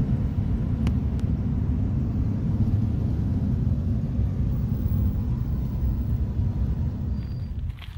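A vehicle driving on the road, a steady low rumble of engine and tyres, with a couple of faint clicks about a second in. The rumble cuts off just before the end.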